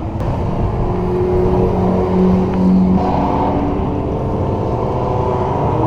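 A car engine running at a fairly steady pitch, with its tone changing about three seconds in.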